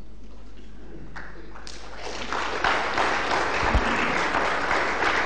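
Audience applauding: a few scattered claps about a second in, swelling into steady applause from about two seconds in. A single low thump about halfway through.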